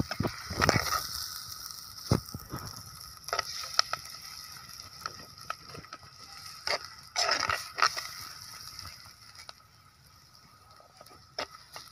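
Sliced onions and curry leaves sizzling in hot oil in a clay pot over a wood fire, with a steel spoon scraping and knocking against the pot several times. The sizzle dies down near the end.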